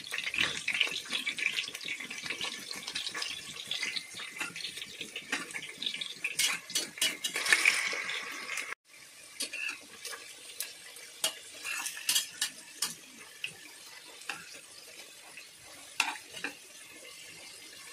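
Potatoes frying in hot oil in a pressure-cooker pot, sizzling, while a metal spoon stirs and turns them, clinking and scraping against the pot. The sound cuts out briefly about halfway, after which the sizzle is quieter, with fewer clinks.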